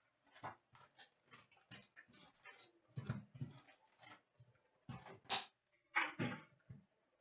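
Hockey card packs and cards being handled: a string of short, irregular crinkles, rustles and clicks, with louder ones about three, five and six seconds in.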